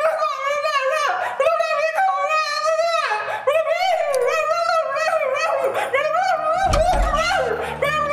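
High-pitched wordless singing voice, sliding and wavering in pitch in short phrases. About six and a half seconds in, a low bass beat of music joins it.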